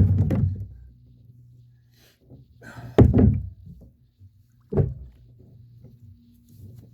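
Two heavy thumps on a boat, a loud one about three seconds in and a sharper one near five seconds, with smaller knocks between, over a faint steady low hum.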